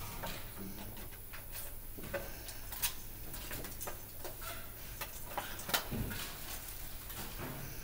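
Irregular plastic clicks and light knocks from a syringe being fitted into a PCA syringe pump, with a low steady hum underneath.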